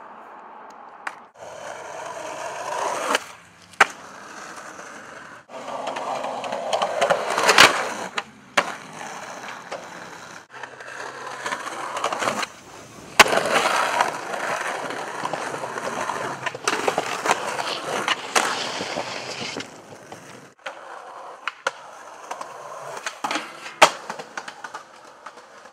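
Skateboard wheels rolling on concrete, broken by sharp clacks of the board popping and landing, in a run of short takes that start and stop abruptly.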